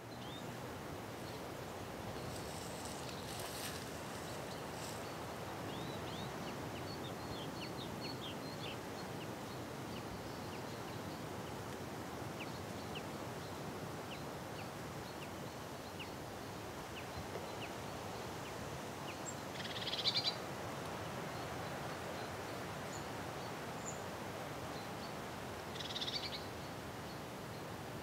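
Outdoor field ambience: a steady background hiss with small birds chirping, many quick faint chirps through the first half and two louder bursts of bird calls later on.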